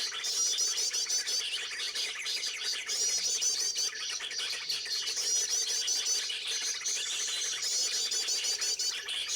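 Several birds chirping and calling together, with a phrase of rapid, high looping notes repeating about every two seconds over a busy background of shorter chirps.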